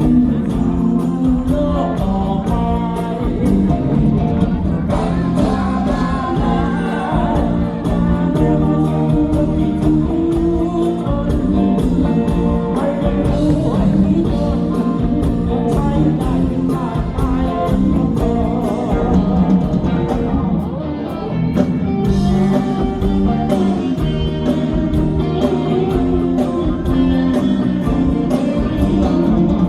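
A rock band playing a song live, with singing over guitar and a steady drum beat.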